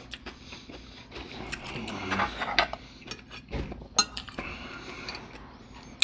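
Cutlery clinking and scraping against a dish during a meal, with scattered small clicks and a sharp clink about four seconds in.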